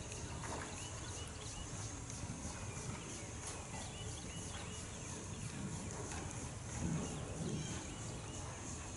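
Horse's hoofbeats on soft sand arena footing, muffled and rhythmic, with a brief louder low noise about seven seconds in.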